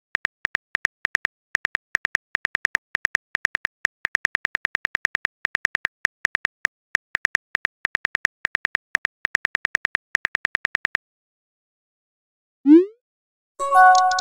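Phone keyboard tap clicks, rapid and irregular, as a text message is typed out; they stop after about eleven seconds. Then a short rising whoosh as the message is sent, and near the end a bright chime of several tones ringing out.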